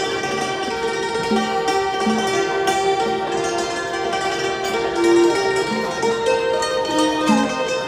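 Thai khim, a hammered dulcimer, struck with a pair of mallets and playing a traditional Thai melody of held notes that step from pitch to pitch.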